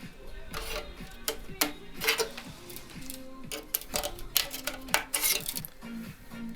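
Background music with sharp percussive hits and short notes that drop in pitch.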